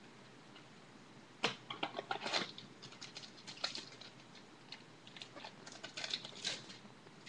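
Packaging and trading cards being handled: a run of irregular crinkling and clicking rustles that starts about a second and a half in and dies away near the end.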